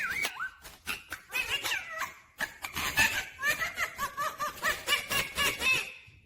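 Indian ringneck parakeet chattering in a rapid run of short rising and falling whistled calls mixed with clicks, about four calls a second in the later part, fading out just before the end.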